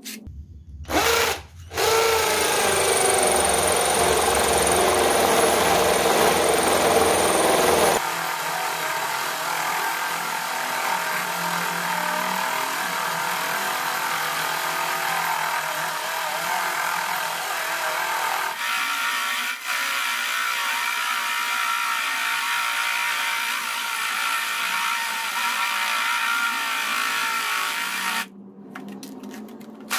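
Corded drill converted to run on an 18-volt Makita battery, boring a 3.5 cm hollow core bit into a concrete block, the bit grinding through the concrete. It starts briefly about a second in, then runs steadily from about two seconds. It drops in level about eight seconds in and stops briefly near the end.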